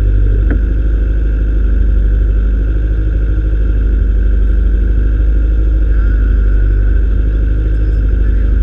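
Integra's four-cylinder engine idling steadily, heard close up from a camera strapped to the car.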